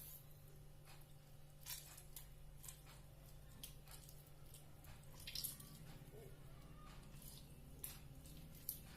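Near silence: a low steady hum with a few faint, scattered clicks and drips, and a brief soft hiss about halfway through.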